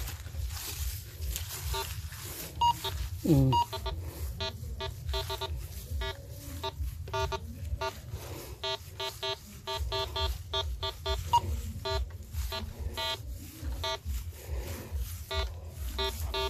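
Metal detector sounding a rapid, irregular run of short beeps as its coil is swept over metal targets in the ground, with one louder tone falling in pitch about three seconds in. A steady low rumble lies underneath.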